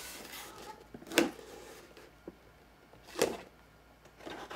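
A long cardboard sword box being handled: a soft sliding rub at first, then two sharp knocks about two seconds apart and a few small taps near the end.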